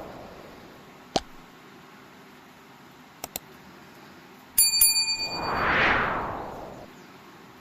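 A brief, rapidly trilled bell-like ring, followed by a swelling and fading whoosh lasting about two seconds. A single click comes about a second in, and two quick clicks a little after three seconds.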